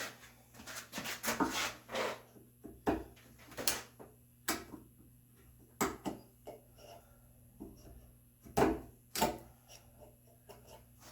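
Chisel working red oak by hand: irregular sharp knocks mixed with short scraping and paring sounds, the loudest knocks about three, six and nine seconds in.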